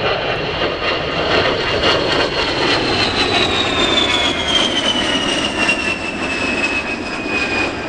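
A Fairchild Republic A-10 Thunderbolt II's twin General Electric TF34 turbofans, with a high-pitched whine over a jet rush during a pass. About three seconds in, the whine starts dropping steadily in pitch as the jet goes by.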